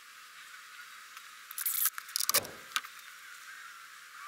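A brief metallic jangle and clatter with a knock about halfway through, over a faint steady hiss.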